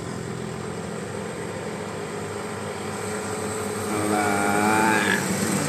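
A bus's engine running as it approaches, then its Basuri 'telolet' multi-tone horn sounding for about a second near the end, several tones at once with a slight waver, rising in pitch as it cuts off.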